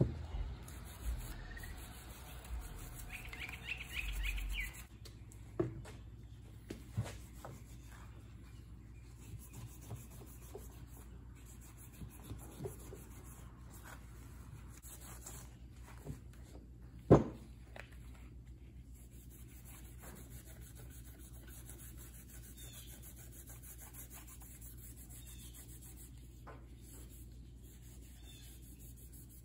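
Gloved hands rubbing and handling a metal brake caliper on a workbench, with scattered small clicks and one sharp knock about 17 seconds in. A few bird chirps come about three seconds in.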